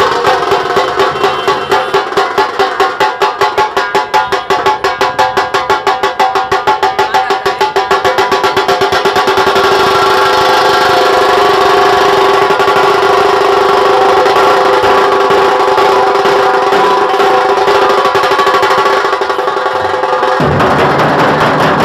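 Nashik dhol band playing: dhol drums beat an even rhythm of about four or five strokes a second that quickens into a continuous roll, under a held melody from a bulbul tarang (Indian banjo) played through horn loudspeakers. Near the end the sound suddenly thickens with heavier, deeper drumming.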